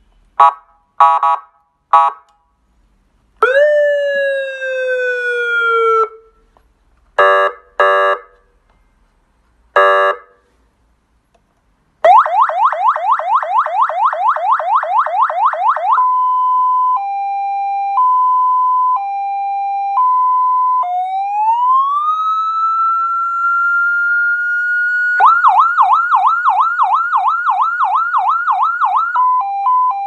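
A 12V 200W electronic siren through its horn speaker, switched through several tones: first a few short blasts and a falling tone, then, about halfway through, a fast yelp, a slow two-tone hi-lo, a rising wail and a fast yelp again.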